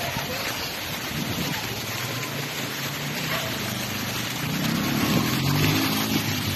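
Steady rushing of a shallow, rocky river. About four and a half seconds in, a louder low drone with a clear pitch joins it.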